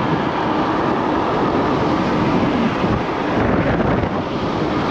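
Wind rushing over the microphone of a moving Yume Hawk Pro 60V electric scooter, with steady road noise and a faint whine from its motors that dips about two and a half seconds in.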